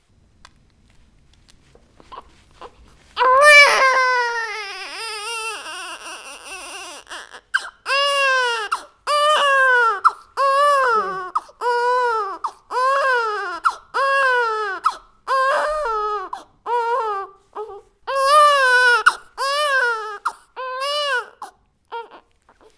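Baby crying: after a brief quiet start, one long wail, then a steady run of cries about one a second, each rising and falling in pitch.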